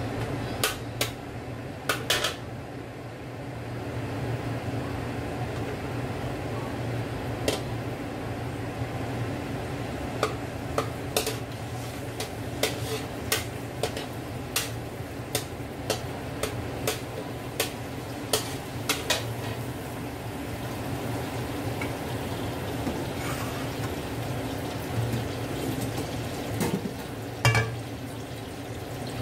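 Metal spatula clanking and scraping against a large metal wok in irregular strokes while stirring garlic frying in oil, with a steady sizzle underneath. The loudest clank comes near the end.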